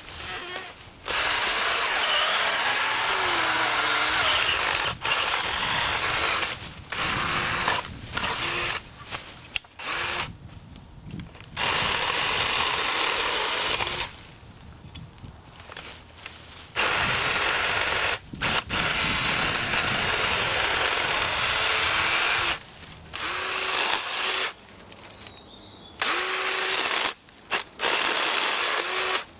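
Black & Decker Alligator cordless lopper's electric chain saw running as it cuts through dead branches. It starts and stops repeatedly, in runs of about one to five seconds with short pauses between.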